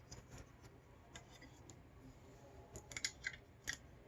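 Faint clicks and ticks of hands working the film compartment of a Lubitel TLR camera, pulling at the spool-holder tabs, with a quick run of sharper clicks about three seconds in.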